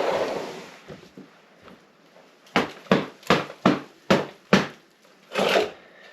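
Six sharp thuds in quick, even succession, about two and a half a second, followed by a longer scraping rustle near the end.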